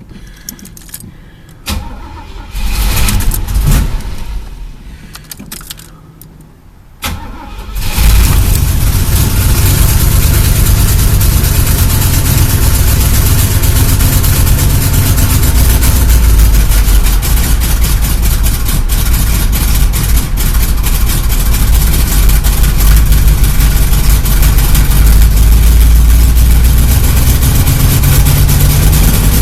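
Chevrolet El Camino engine cranked in a few short bursts, then catching about eight seconds in and running steadily on gas poured into the carburetor, after a no-start caused by an empty tank. It is running cold with no choke on.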